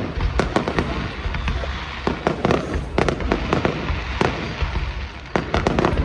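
Fireworks display going off: a rapid, irregular string of sharp bangs and crackles over a continuous low rumble, easing briefly about five seconds in before picking up again.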